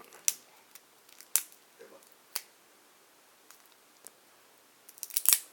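Game cards and their packaging being handled, giving a few sharp separate clicks and snaps, then a quick run of them near the end.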